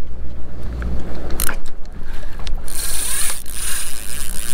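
Spinning reel being cranked to take in line on a bent rod, over a steady low hum from the boat's engine.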